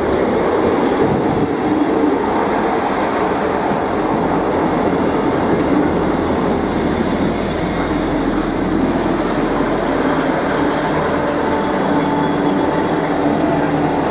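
Class 158 diesel multiple unit running in past at close range: a steady diesel engine drone with wheel and rail noise as it slows to a stop at the platform.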